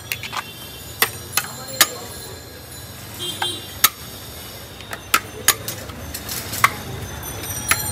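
Metal serving spoon knocking and scraping against a large metal biryani pot as rice and mutton are scooped out: about a dozen sharp, irregular clinks over a steady low hum.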